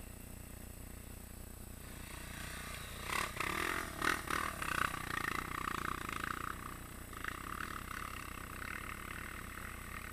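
Off-road motorcycle engines running on a dirt trail. The sound picks up about two seconds in, has a burst of knocks and rattles around three to five seconds, then settles into a steadier engine noise as the bikes ride on.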